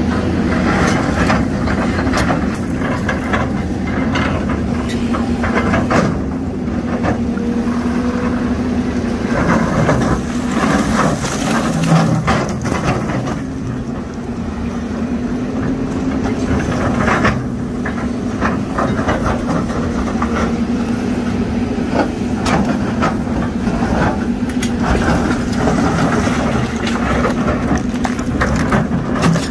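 Doosan crawler excavator's diesel engine running steadily under load, with rocks knocking, cracking and clattering as its bucket pries at and shifts large boulders.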